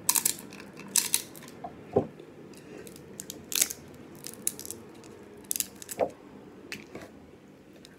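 Snow crab leg shells cracking and snapping as they are broken apart by hand: a string of sharp, irregular cracks, about one or two a second.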